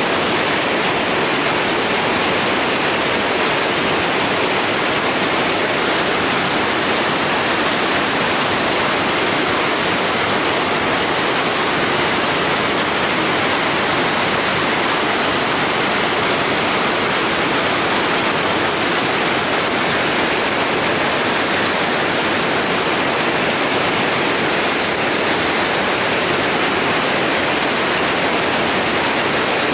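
Waterfall: water falling and splashing into its pool without a break, a steady, even rush of noise.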